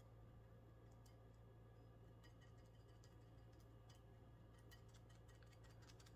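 Near silence: a steady low room hum with faint, scattered ticks, a little more frequent in the second half.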